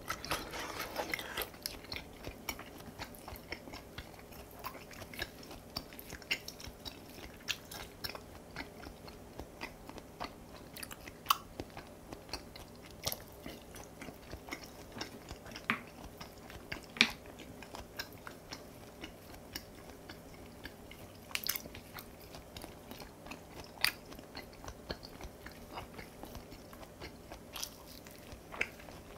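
A person chewing and biting mouthfuls of raw beef and kimchi close to the microphone: soft wet chewing with scattered sharp crunches and clicks.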